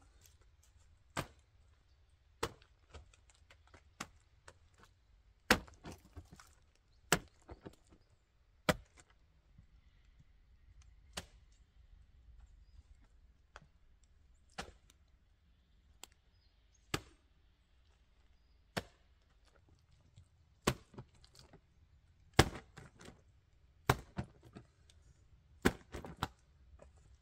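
Blade chopping into wood: sharp, separate knocks about every one to two seconds, some followed by a small clatter, with a short lull midway.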